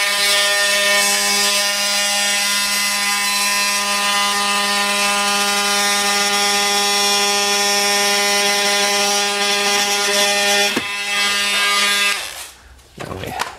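Milwaukee M18 Fuel 2836 oscillating multi-tool running steadily as it cuts through drywall, a loud, even buzz. It dips briefly near eleven seconds and cuts off about twelve seconds in.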